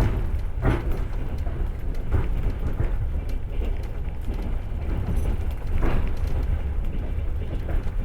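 Passenger train carriage in motion: a steady low rumble of the running gear, with scattered clacks of the wheels over rail joints, the loudest a little under a second in and just before six seconds in.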